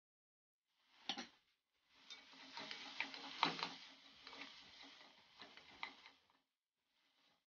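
Wooden spatula stirring diced vegetables and tomato paste frying in a metal cauldron: scraping and clicking against the pot over a light sizzle. A short sharp knock comes about a second in.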